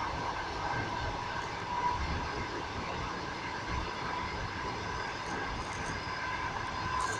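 Moving passenger train heard from inside the carriage: a steady rumble of wheels on the rails, with a faint steady whine running through it.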